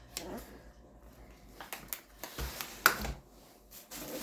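Packaged groceries being handled and set down: scattered clicks and taps with light rustling, the loudest a sharp click with a low thump a little under three seconds in.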